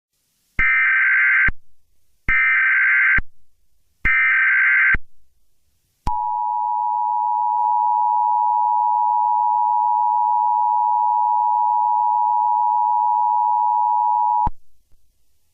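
Emergency Alert System alert tones. Three short data bursts of the SAME header, each about a second long with a second's gap between them, are followed by the steady two-tone attention signal. That signal holds for about eight seconds and then cuts off suddenly.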